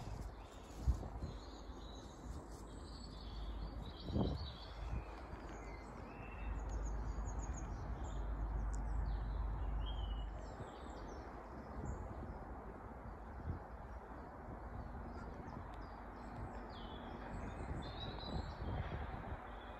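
Small birds chirping and singing, with a low wind rumble on the microphone for a few seconds around the middle. There are also two sharp knocks near the start.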